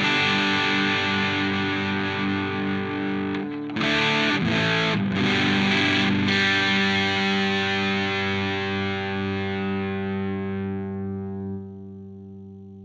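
Electric guitar played through a TC Electronic Mojo Mojo overdrive pedal: distorted, overdriven chords with a few short breaks. About six seconds in, a final chord is left to ring out and slowly fades away.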